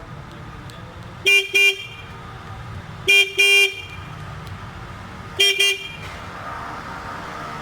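A vehicle horn giving three double beeps, about two seconds apart, over the steady low rumble of a small tour bus riding along.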